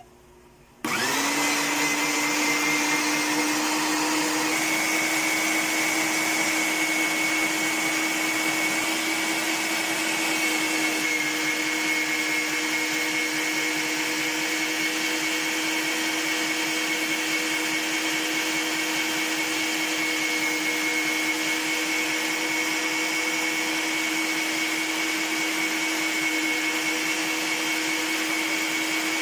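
Ollygrin electric meat grinder's motor switching on about a second in, its whine rising quickly to speed, then running steadily.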